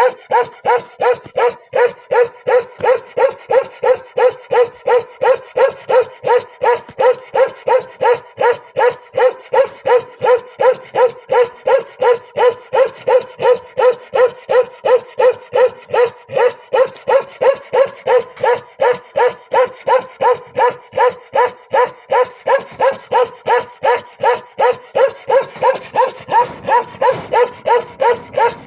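A Bakarwal dog, the Kashmiri livestock guardian breed, barking steadily and rhythmically, nearly three barks a second without a pause.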